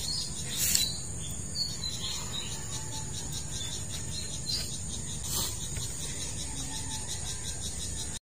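Steady, rhythmic high-pitched chirring of crickets, with a couple of light knocks from handling at the scooter's oil drain plug; the sound cuts off suddenly near the end.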